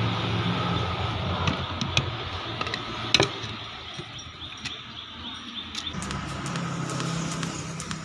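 A low, steady machine or engine hum that fades out in the middle and comes back near the end, with a few sharp metallic clicks and knocks, the loudest a little after three seconds in.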